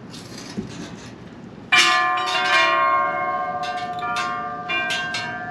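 Celebration bells sound effect: a peal of ringing bells comes in suddenly about two seconds in, with repeated strikes overlapping and ringing on.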